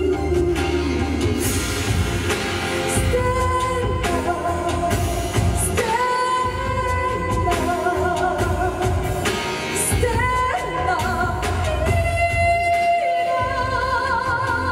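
Show music with a sung melody. The voice holds long notes that step from pitch to pitch and waver with vibrato near the end.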